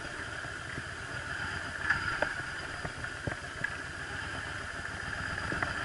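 Yamaha Drag Star 1100's air-cooled V-twin running at low revs while the motorcycle rolls slowly, with a few faint clicks.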